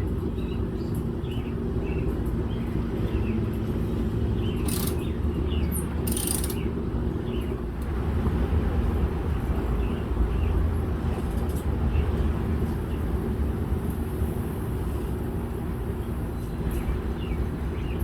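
Steady low rumble of a running vehicle, with two sharp clanks about five and six seconds in.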